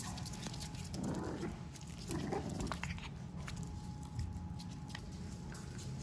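French bulldog puppies play-fighting, with two short rough vocal noises about one and two seconds in, and light scuffling and clicking.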